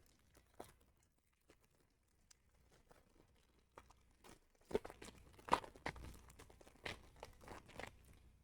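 Wrapper of a trading card pack being torn open and crinkled: faint scattered clicks, then a cluster of crackling tears from about halfway through.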